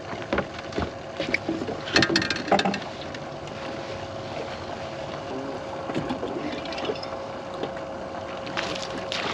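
Several knocks and thumps on a fiberglass bass boat in the first few seconds, the loudest about two seconds in, as gear and the caught fish are handled. Under them run steady wind and water noise and a faint steady hum.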